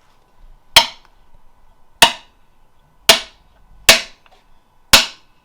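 Hammer tapping five times, about a second apart, each sharp strike ringing briefly, driving a shift detent into a ZF transmission case.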